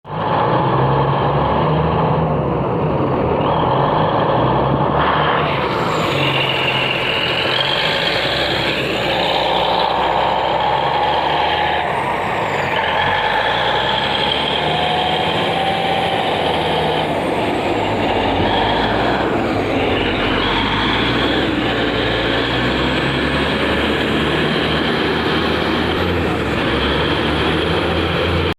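Bulldozer at work: its diesel engine runs continuously under load, and the engine note steps up and down several times. Over the engine, high whining tones come and go.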